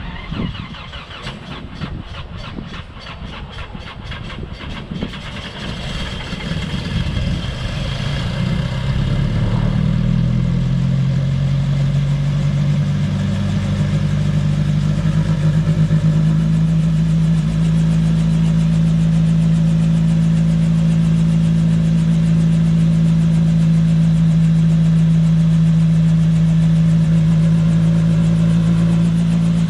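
Turbocharged 168 hp engine of a RotorWay A600 Talon kit helicopter running on the ground. It starts as a low, evenly pulsing idle, picks up speed and grows louder over the first ten seconds or so, then settles into a steady drone.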